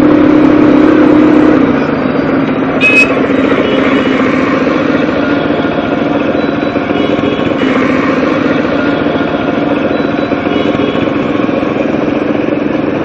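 Motorcycle engine running steadily under way, with road and wind noise, easing a little after about two seconds. A short high-pitched beep sounds about three seconds in.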